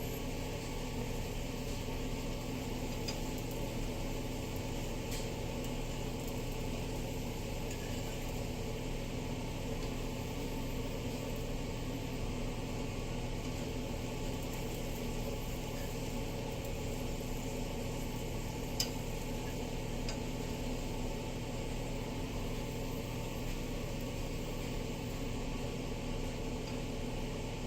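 Steady hum of a kitchen exhaust fan running, with a single faint click about nineteen seconds in.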